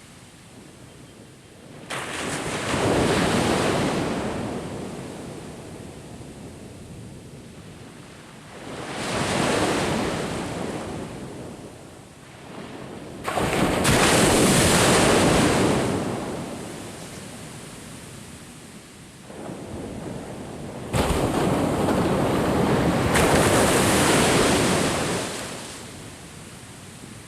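Surf waves breaking and washing up a beach: four swells of rushing noise several seconds apart, with a quieter wash between them.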